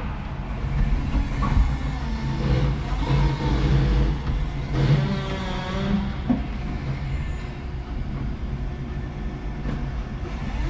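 5-ton electric forklift working, heard from inside its cab: a steady low hum from its motors over an uneven mechanical rumble.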